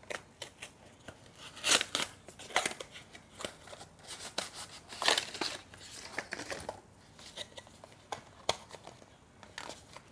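Small cardboard product box being opened by hand: irregular rustles, scrapes and light taps of the packaging as the lid and inner tray are worked loose.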